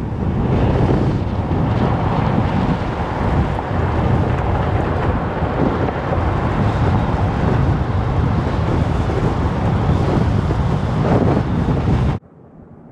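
Heavy wind buffeting the microphone: a loud, steady rush that cuts off suddenly near the end, leaving a much quieter background.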